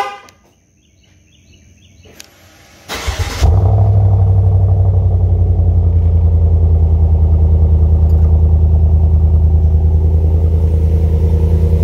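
2021 Chevrolet Silverado's 6.2-litre V8 cold-starting through a muffler-delete straight-pipe exhaust with its resonators still on. It fires up about three seconds in and settles into a loud, steady cold-start idle with a deep, even throb, measuring about 85 dB beside the exhaust.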